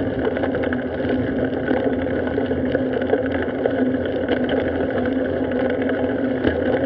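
Steady rolling noise of a bicycle ridden along a paved street: tyre noise and wind over the bike-mounted camera's microphone, with a constant low hum underneath.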